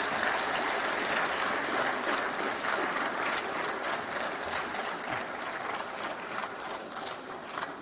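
An audience applauding with steady, dense clapping that slowly thins out over the last few seconds.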